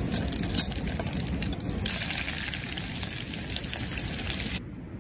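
Seeds sizzling and crackling in hot mustard oil in a small camping pot on a gas-canister stove. The sizzle stops abruptly about four and a half seconds in.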